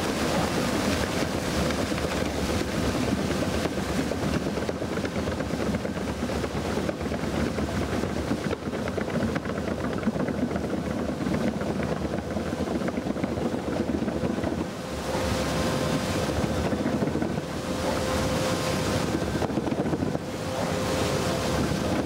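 WEIMA WLK6S single-shaft shredder tearing greenhouse plastic film into flakes: a steady dense rushing noise of the rotor cutting and the film rubbing, with a few short dips in the second half. A faint steady whine comes through more clearly in the second half.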